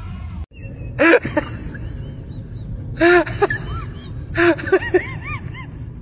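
Small dogs barking in short yaps: single barks about a second in and about three seconds in, then a quick run of several barks a little after four seconds.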